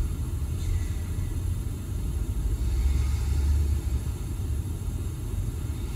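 A steady low rumble, swelling a little about three seconds in.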